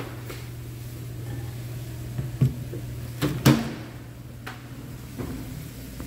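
Kitchen handling sounds: a few short knocks and clicks, the loudest about three and a half seconds in, over a steady low hum.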